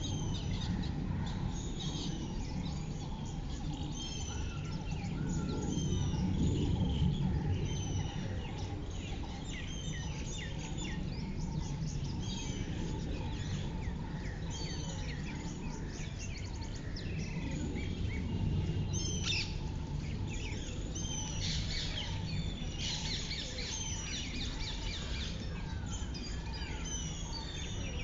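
Small birds chirping and calling again and again, with a denser spell of rapid chattering about twenty seconds in, over a low steady background rumble.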